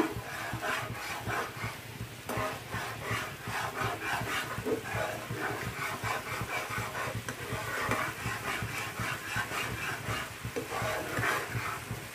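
Slotted spatula stirring and scraping across a nonstick frying pan of boiling sugar syrup in quick repeated strokes, the syrup bubbling as the sugar dissolves on its way to caramel. A steady low hum runs underneath.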